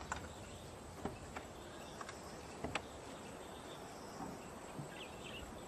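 Faint outdoor ambience: a steady, high, thin insect drone over soft background noise, with a few faint clicks.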